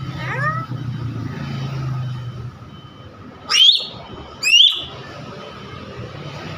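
Nias hill myna calling: a short falling call near the start, then two loud, steeply rising whistles about a second apart near the middle. A low rumble runs under the first two seconds.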